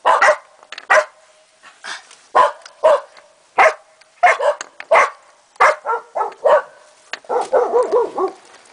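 Cardigan Welsh Corgi giving a string of short, high barks, about one every half second, then a quicker run of yapping near the end.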